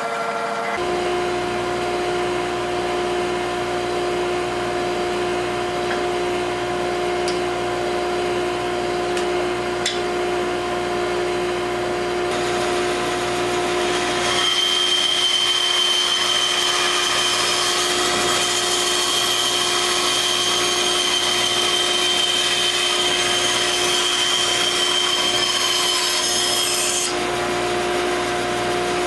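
Benchtop bandsaw running with a steady hum, its blade cutting a small wooden board. About halfway through, the cutting gets louder, with a high whine and hiss that ease off again shortly before the end.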